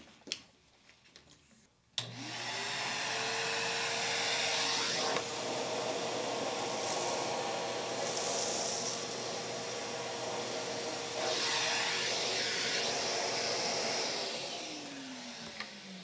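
Numatic Henry HVR200 canister vacuum switched on about two seconds in. Its motor whines up to speed, then runs steadily with a rush of air that shifts as the plain floor tool, which has no spinning brush, works over carpet strewn with cat litter, flour, cereal and pet hair. Near the end it is switched off and the whine falls away as the motor spins down.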